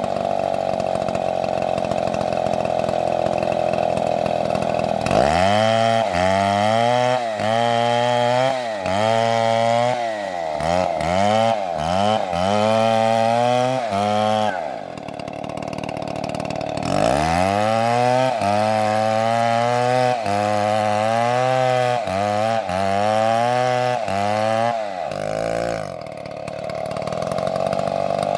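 Two-stroke chainsaw running at high throttle while cutting wood. It holds a steady high pitch at first and near the end. In two long spells, starting about five seconds in and again past the middle, the engine pitch drops and swings up and down about once a second as the chain loads and unloads in the cut.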